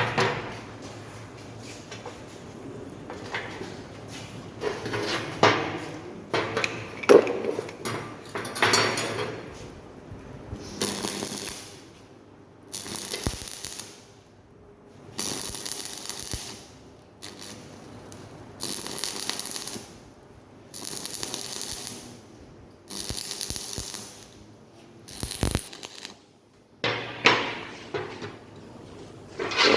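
Metal parts knocking and clattering as they are handled. Then a run of about seven short arc-welding bursts, each a crackling hiss lasting a second or two with brief pauses between, like a row of tack welds. Sharp metallic clinks come near the end.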